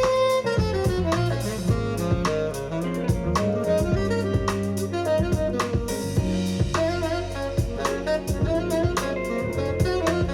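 A jazz recording playing: a saxophone lead over a busy drum kit with frequent cymbal and drum hits.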